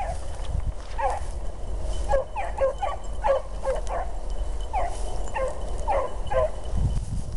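A pack of beagles baying as they run a rabbit on its scent trail: many short, overlapping hound calls repeating all through, over a steady low rumble.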